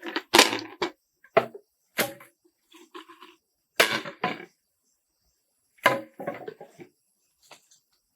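A series of sharp knocks at an irregular pace, about five loud ones with fainter ones between.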